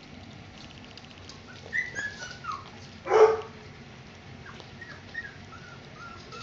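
Puppies at play giving short high-pitched whines and squeaks, with one loud yap about three seconds in.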